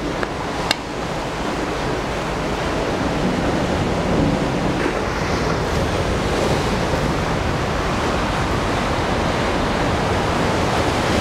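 Rough sea surf breaking and washing over a rocky shore, a steady rushing noise, with some wind on the microphone.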